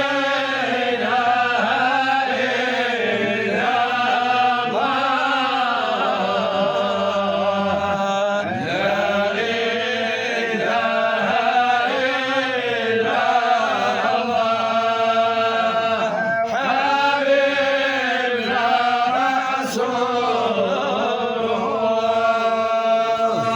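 A man's voice chanting an Arabic Sufi devotional poem in long, drawn-out phrases whose pitch bends up and down.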